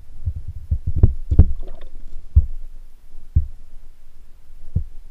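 Dull, irregular low thumps and knocks heard underwater: several close together about a second in, then single ones spaced out.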